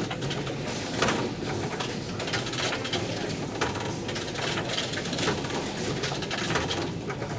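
Metro turnstiles clicking and knocking at irregular intervals, a sharp clunk every second or two as people pass through, over the steady background noise of the station.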